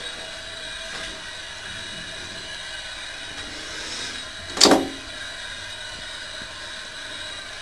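Steady rushing hiss of water running in the house's plumbing, sounding like a running tap though the tap is closed, with faint whistling tones held over it. A single sharp knock about four and a half seconds in.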